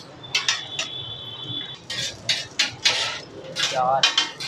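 Metal cooking utensils and dishes clanking and clattering, many sharp strikes in quick succession, with voices in the background.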